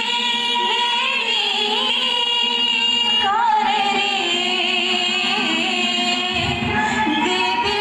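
Himachali folk music for a stage dance: a wavering melody line over steady held drone tones, at an even level.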